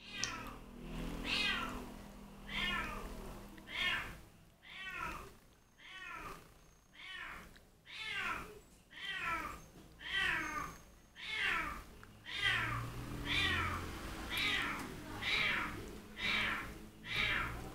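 Domestic cat meowing over and over, about one call a second, each call falling in pitch. These are the cries of a pet upset at being left alone.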